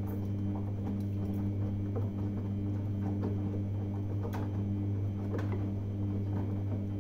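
Samsung front-loading washing machine in the main wash of a Cottons 30 °C intensive cycle: the drum motor hums steadily while the wet laundry tumbles and sloshes, with light scattered knocks.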